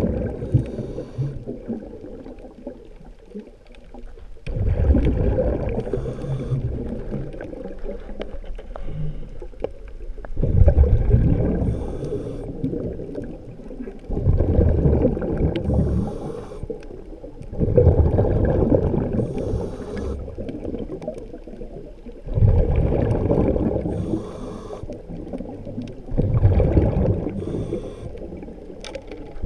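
A diver breathing underwater: exhaled air bubbles rumbling and gurgling in a surge about every four seconds, with fainter hissing between them.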